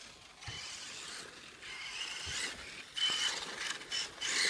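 Radio-controlled toy car running, its electric motor giving a thin high whine in short spurts over a rough hiss.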